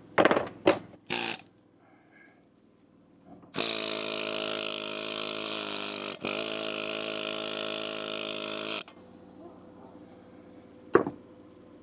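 Lincoln Electric Weld-Pak flux-core wire welder striking an arc and running a short bead: a steady buzzing crackle with a hum underneath, lasting about five seconds with a brief break in the middle, cutting off suddenly. A few sharp metal knocks come just before it and a single click near the end.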